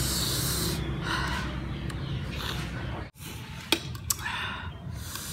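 Mouth sounds of someone eating sour lemon slices coated in spicy salt: several short, sharp sucking intakes of air. About four seconds in come two light clicks of metal cutlery on the plate.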